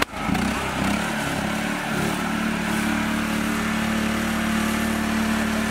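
Engine of a mini tractor badged Massey Ferguson 360, running steadily as it drives through mud. The sound drops out briefly at the very start, then the engine note settles at one steady pitch after about two seconds.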